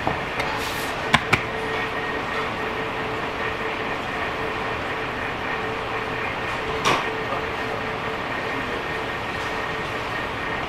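Steady drone of background machinery with a constant hum. A couple of sharp clicks come about a second in, and a soft knock near seven seconds.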